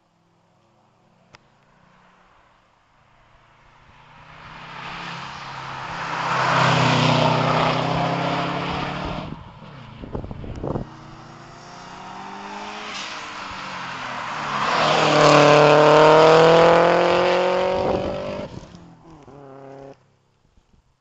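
Rally car engine at high revs, rising and falling through gear changes as cars pass at speed twice, with a few sharp cracks about halfway through. The sound cuts off suddenly near the end.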